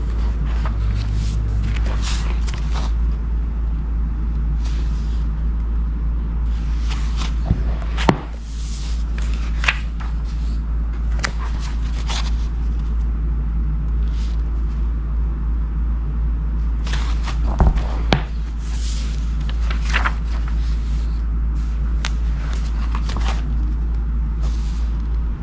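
Paperback book pages being turned and handled: repeated short paper rustles and a few sharp page flicks, over a steady low hum.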